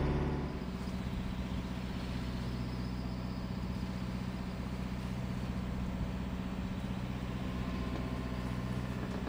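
A louder low drone drops away about half a second in, leaving a steady low hum with wind and water wash aboard a sailing yacht under way at sea.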